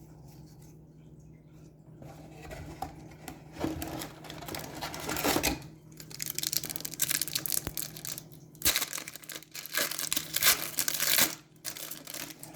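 A trading-card pack wrapper being torn open and crinkled by hand: uneven bursts of tearing and crinkling that start about two seconds in and stop shortly before the end.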